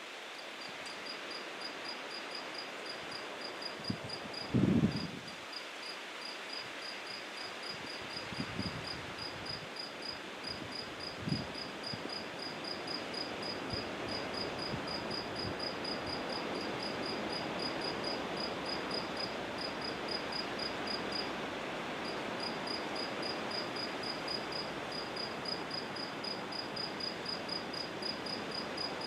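A cricket chirping steadily at night, a high, even chirp repeated about five times a second with brief pauses, over a soft hiss of background noise. A few short low thumps come through, the loudest about five seconds in.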